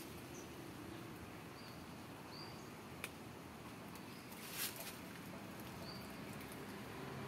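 Quiet outdoor background noise with a few short, high chirps scattered through it. A sharp click comes about three seconds in, and a brief rustle about a second and a half later.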